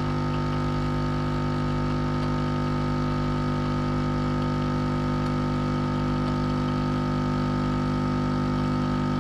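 Kotlie 4-in-1 capsule coffee machine's pump running with a steady hum while it brews a 4-ounce cup of ground coffee.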